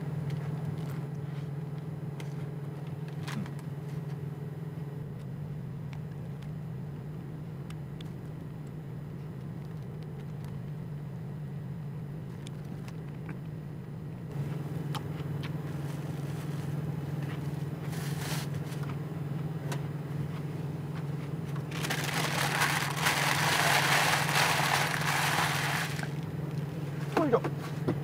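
Paper sandwich wrapper being handled, with a few scattered crackles, then a loud spell of rustling and crinkling for about four seconds after the middle. A steady low hum runs underneath throughout.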